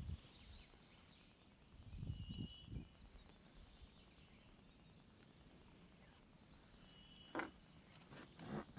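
Near-silent open-air quiet with faint bird calls, a few soft low knocks about two seconds in, and two sharp clicks near the end.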